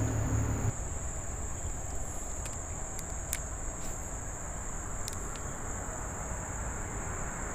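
Insects calling in one steady high-pitched drone, with a few faint clicks scattered through it.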